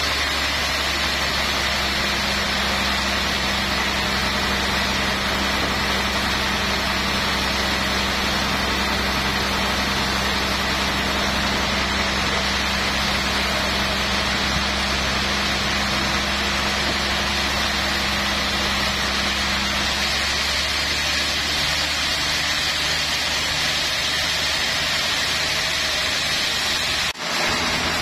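Large sawmill band saw running steadily, its blade cutting lengthwise through a big rain tree (trembesi) log on the carriage. The sound drops out for an instant near the end.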